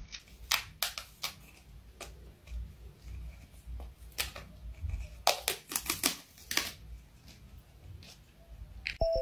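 A cat's claws and paws scratching and tapping at a textured wallpapered wall and a feather toy on it. The sound comes as irregular sharp taps, thickest in a cluster a little past the middle.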